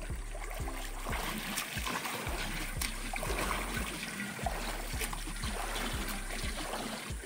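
A swimmer's freestyle strokes and kicks splashing through pool water: a steady wash of splashing with soft low thumps about three times a second.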